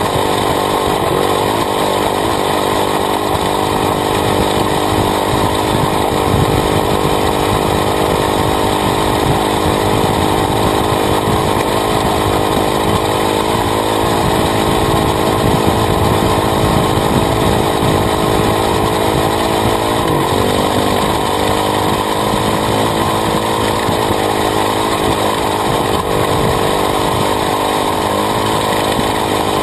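Honda CRF450R dirt bike's single-cylinder four-stroke engine running hard under way, loud and steady, its pitch rising and falling with the throttle, notably around twenty seconds in. Heard up close from the swingarm, with tyre and gravel noise underneath.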